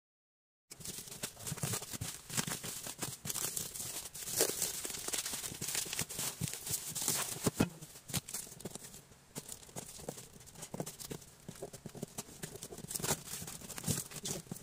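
A moment of total silence, then rustling, scraping and tapping of hands on a cardboard shipping box, with scattered sharp clicks; near the end the cardboard and packing tape are torn open.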